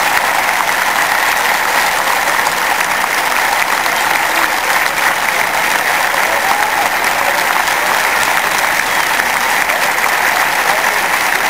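A large stadium crowd applauding, a dense, steady wash of clapping that neither swells nor fades.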